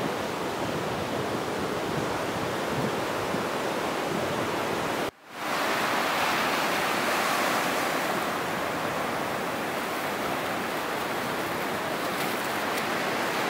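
Surf breaking and washing up a sandy beach: a steady rushing wash of waves, cut off for a moment about five seconds in before the wash resumes.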